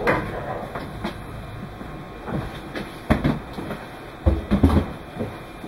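Meitetsu 2200 series electric train running, its wheels knocking irregularly over rail joints and points, with heavier thumps about three seconds in and again around four and a half seconds in.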